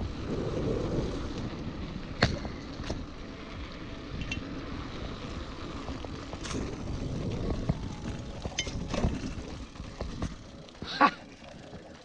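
Mountain bike riding over a rough dirt track: a steady rolling noise of tyres on dirt and leaves, with the bike rattling and knocking sharply over bumps several times, the loudest knock near the end.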